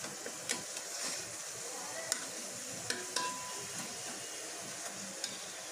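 Sliced onions sizzling in hot oil in an aluminium pot, stirred with a metal spoon that clicks against the pot a few times.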